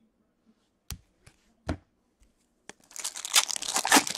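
Two light taps of cards being handled, then from about three seconds in the crinkling tear of a hockey card pack's wrapper being ripped open.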